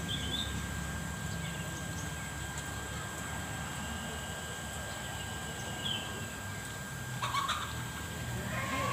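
Steady outdoor background of a low hum, with two short high bird chirps, one at the very start and one about six seconds in. A brief louder sound comes about seven seconds in.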